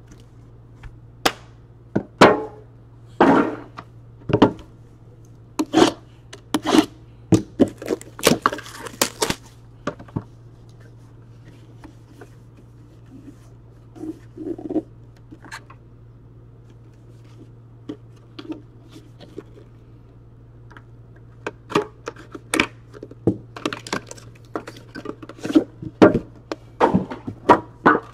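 Hands handling trading-card packaging on a tabletop, a cardboard box and the metal tin inside it: a string of sharp knocks, taps and clicks, busy for the first ten seconds, sparse in the middle and busy again near the end, over a steady low hum.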